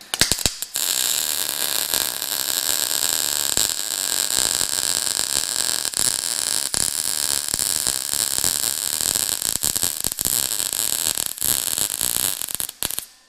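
Wire-feed welder arc crackling steadily as a bead is laid on a steel angle-iron seat bracket. A few short clicks come as the arc strikes at the start, and the crackle cuts off shortly before the end.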